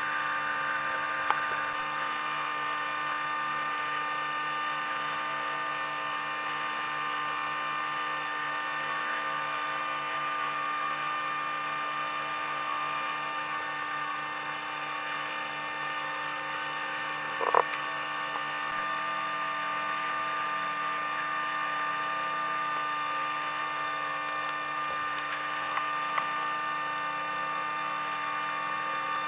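Outrigger boat's engine running at steady speed under way, a constant drone of several fixed tones. A single sharp knock sounds a little past the middle.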